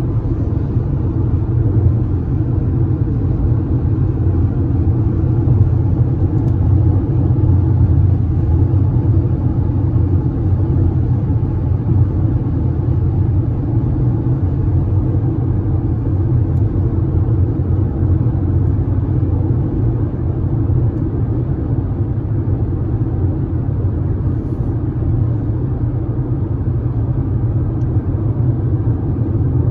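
Steady low road rumble heard inside a moving car's cabin: tyre and engine noise while cruising on a highway.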